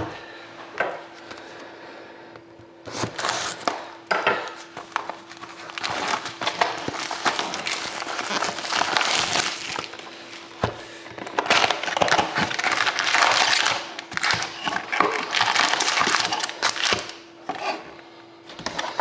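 Plastic wrapping crinkling and cardboard rustling and scraping as a sealed trading-card box is unwrapped and its lid opened, in a run of crackly handling noise with many small clicks, under a faint steady hum.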